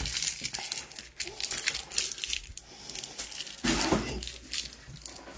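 Light clicks, taps and rustles of things being handled on a tabletop, with a duller knock about four seconds in.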